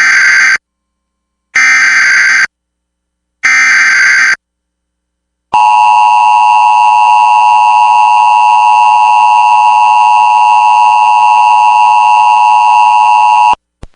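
Emergency Alert System header: three short bursts of warbling SAME digital data tones, about two seconds apart. They are followed by the steady two-tone EAS attention signal (853 and 960 Hz together), held for about eight seconds and then cut off abruptly.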